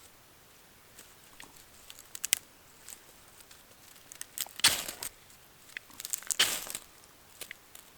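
Small clicks and crinkles of dry wood and bark being handled, with two short scraping or tearing sounds, one about four and a half seconds in and one about six seconds in.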